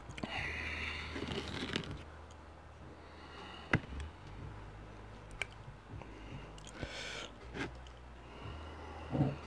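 Quiet eating and handling sounds: chewing, and plastic dip cups being moved on the table, with a few light clicks and taps and a soft thump near the end.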